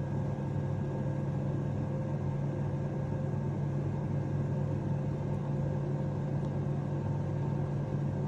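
An air fryer oven running, its convection fan giving a steady, even hum.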